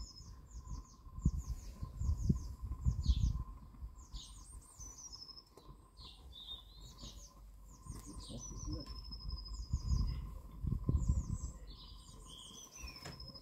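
Wind buffeting the microphone in gusts, loudest about a second in and again around ten seconds in, while a songbird sings short chirping phrases over and over.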